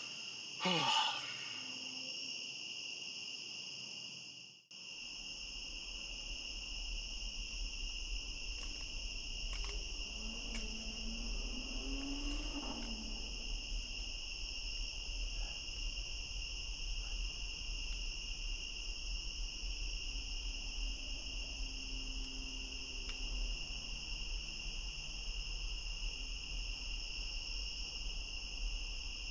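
Night chorus of crickets: a steady, high-pitched trilling with several pitches layered. A faint low rumble runs underneath from about five seconds in.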